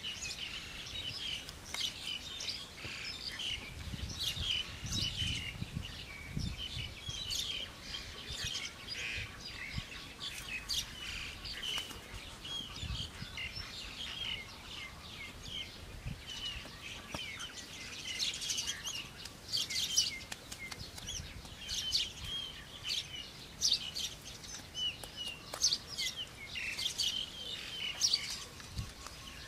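Birds chirping and twittering in quick, short calls that go on the whole time, with a few dull low thuds a few seconds in.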